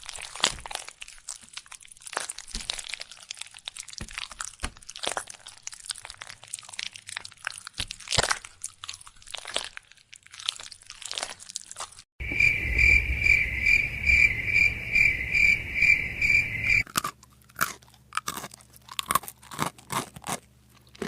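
Crunchy chewing of chickpeas (chana) close to the microphone: many rapid crunches and bites. Partway through, for about four seconds, the crunching gives way to a high pulsing beep, about two beeps a second, over a low rumble, before the crunching returns over a low hum.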